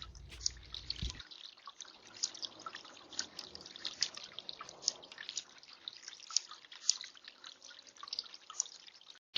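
Small tiered birdbath fountain trickling: irregular light drips and splashes of water falling onto pebbles, several a second.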